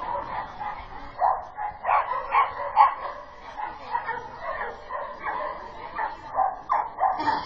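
A dog barking repeatedly, short barks coming in irregular runs.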